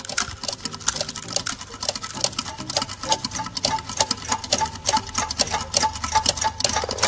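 Clockwork-style mechanical ticking sound effect: fast, even clicks like turning gears over a low steady hum.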